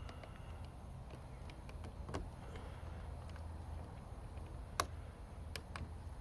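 A few sharp clicks and light taps of a tool working at the plastic cap on a 2022 Hyundai Sonata's door handle, trying to pry it off to reach the hidden key lock. A low steady hum runs underneath.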